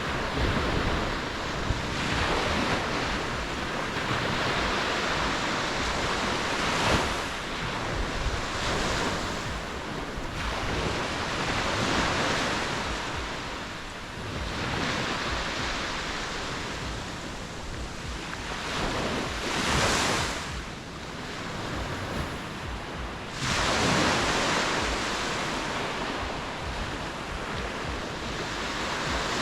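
Ocean waves breaking and washing on the shore, the surf swelling and falling every few seconds, with wind noise on the microphone.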